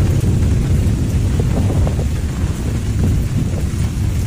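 Erupting volcano's lava fountain: a deep, continuous rumble, with a few faint crackles about halfway through.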